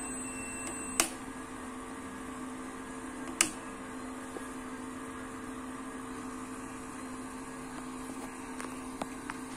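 Steady hum and fan noise from a 144 MHz power amplifier unit with built-in power supply, its overvoltage protection tripped. Two sharp clicks come, about a second in and about three and a half seconds in; a faint high whine stops with the first.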